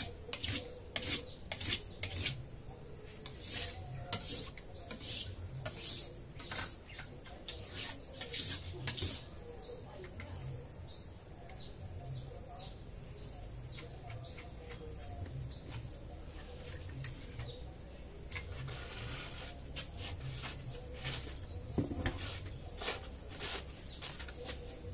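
Parang blade stroked back and forth on a coarse river-stone whetstone, a rasping scrape about two to three times a second. After about ten seconds the strokes thin out, with a few more near the end.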